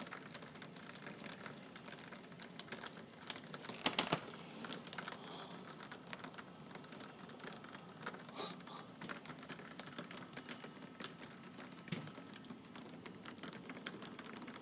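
Heavy rain pattering: many irregular sharp drop taps over a steady hiss, with a louder cluster of taps about four seconds in.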